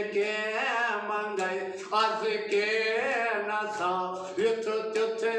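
A man singing a Kashmiri devotional song in long, drawn-out melodic phrases over a steady low drone.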